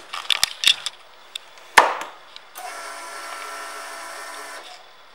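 A series of sharp clicks from switching on a 1999 Harley-Davidson Road King Classic's ignition and controls, with one louder click a little under two seconds in. Then a steady electric whine runs for about two seconds and stops, as the bike's electrics come on ahead of starting.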